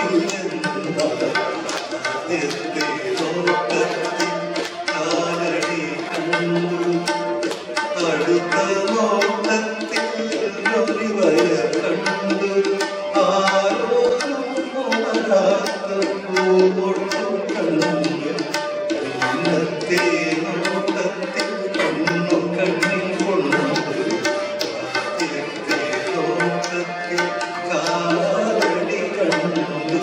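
A male vocalist singing a song through a microphone, accompanied by a tabla playing a quick, steady rhythm.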